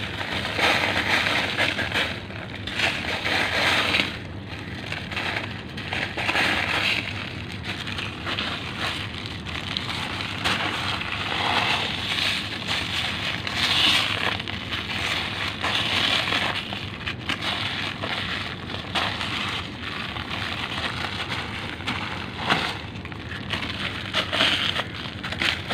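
A dry, crumbly sand-and-cement cake being squeezed and broken apart by hand on a plastic sheet: continuous gritty crunching that swells and eases in repeated surges as each handful gives way.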